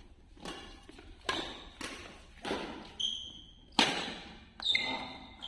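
Badminton rackets striking the shuttlecock in a fast rally: a run of about seven sharp hits, the loudest a little under four seconds in. Shoes squeak briefly on the court floor twice, at about three seconds and near the end.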